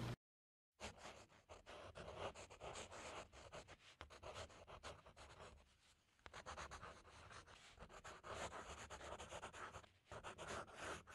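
Graphite pencil scratching across paper in many quick, short strokes while drawing, faint, with a short pause about halfway.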